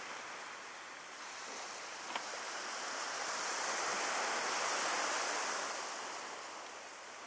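Ocean surf on a beach: a wave washes in, swelling to a peak and fading away over a few seconds, with a light wind. A single small click about two seconds in.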